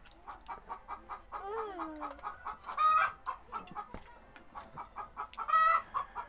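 Chickens clucking in short repeated calls, with two louder squawks about three and five and a half seconds in.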